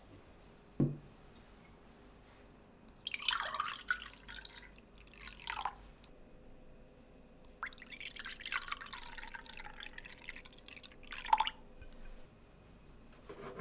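Orange juice poured from a glass carafe into two plastic mugs, one after the other: a splashing pour of about three seconds, then a longer one of about four. There is a light knock a little under a second in.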